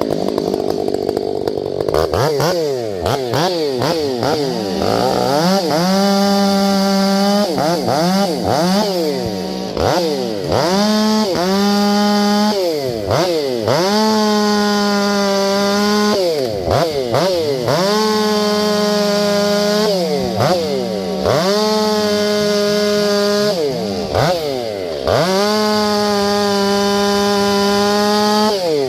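Gas chainsaw bucking firewood, held at a high steady pitch through each cut, its pitch dropping sharply between cuts and rising again, about eight times over.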